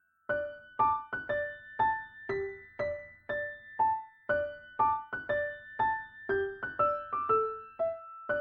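Piano music: notes and chords struck about twice a second, each ringing and fading, starting after a brief silent gap.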